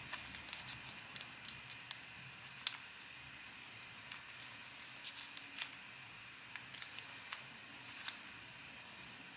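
Origami paper being folded and creased by hand: faint, scattered paper crinkles and small clicks, a few sharper ones standing out, over a steady hiss.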